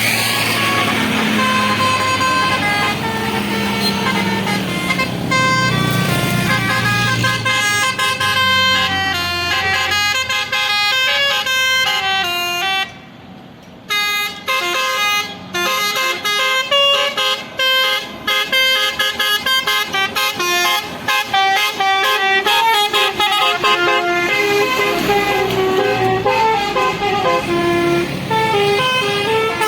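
Basuri 'telolet' multi-tone bus horn playing a tune of quick, stepped notes, breaking off for about a second near the middle and then going on in choppier bursts. A bus engine rumbles under the first few seconds.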